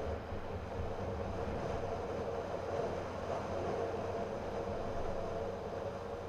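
Steady running noise of a car driving through a road tunnel, heard from inside the cabin: engine and tyre rumble at an even level.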